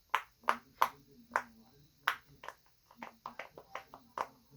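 Silicone pop-it fidget toy bubbles being pressed through with a finger, a quick irregular run of about a dozen sharp little pops.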